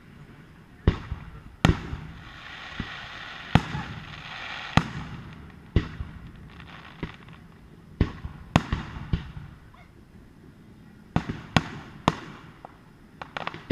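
Fireworks display: about a dozen sharp bangs of bursting fireworks at irregular intervals, some in quick succession, with a stretch of steady hiss a few seconds in.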